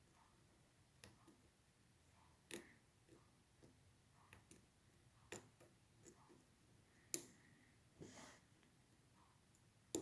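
Sparse, faint metallic clicks of a lock pick working the pin tumblers of a Schlage Primus pin-tumbler cylinder under tension, one sharp click every second or two. The loudest click comes about seven seconds in, with a soft scrape just after.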